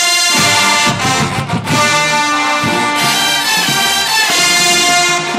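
College marching band's brass section playing a loud fanfare in held chords, with a short break about a second in and brief cut-offs between phrases.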